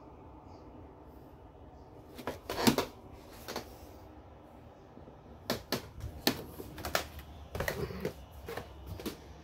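Scattered light knocks and taps, the loudest about a third of the way in, then a quicker, irregular run of them in the second half.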